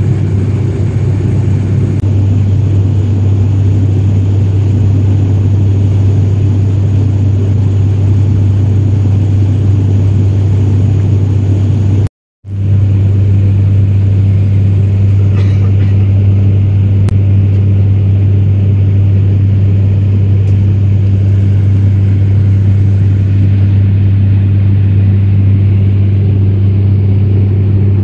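Cabin drone of an ATR 72-500 turboprop in flight: its Pratt & Whitney PW127 engines and six-bladed propellers make a loud, steady low hum with an even rumble beneath. The sound cuts out completely for a moment about twelve seconds in, then resumes unchanged.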